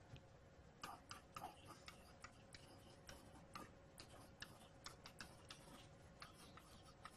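Faint, irregular clicks and taps of a pen writing on an interactive whiteboard, a few a second.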